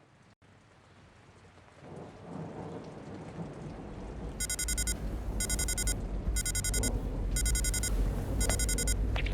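A low rumbling noise swells in over the first few seconds and keeps going. From about halfway through, a tone beeps five times in a steady rhythm, a little under once a second.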